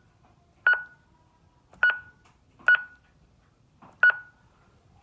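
Four short electronic key-press beeps, each a single pitched tone with a click at its start, spaced roughly a second apart, as buttons are pressed on the keypad of the alarm or garage-door system.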